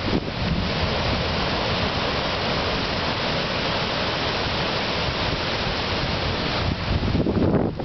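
Steady roar of heavy storm surf breaking over rocks, mixed with strong wind. Near the end, gusts buffet the microphone.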